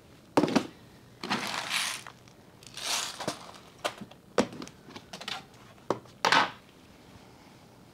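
Plastic storage bins and supplies being handled and set down: a series of sharp plastic knocks and clunks, with rustling and scraping between them.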